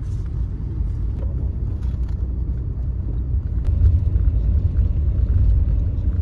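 Steady low rumble of a moving vehicle, heard from inside it, with a few faint clicks; it swells a little about four seconds in.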